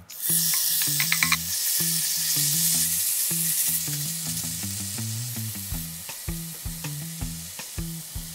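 Gochujang-marinated pork hitting a hot, oiled cast-iron pan and sizzling loudly, the sizzle starting suddenly and slowly easing off. A few clinks about a second in, and scattered light knocks later on.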